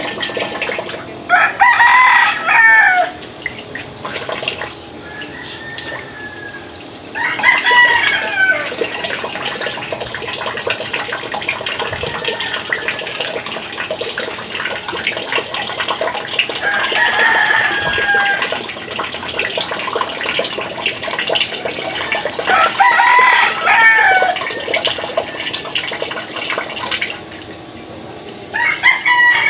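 A rooster crowing five times, several seconds apart, each crow lasting about a second and a half. Behind it, a tap runs steadily from about a quarter of the way in until near the end, with water splashing as hands are washed under it.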